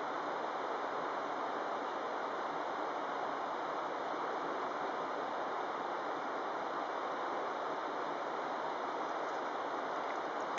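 Steady rush of a fast river flowing over and around boulders, an even noise without separate splashes.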